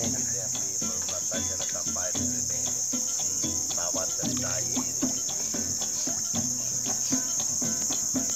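Steady high-pitched drone of a forest insect chorus, with scattered light knocks and clicks over it.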